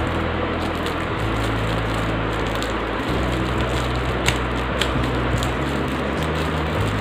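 Steady whooshing hum of running electric fans, with a few short crinkles of a clear plastic package being handled about four to five and a half seconds in.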